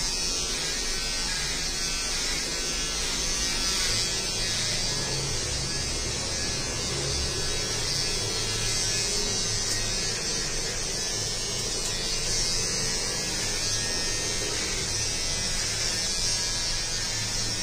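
Electric hair trimmer running with a steady buzz as it is run up the back of a man's neck, clipping his hair.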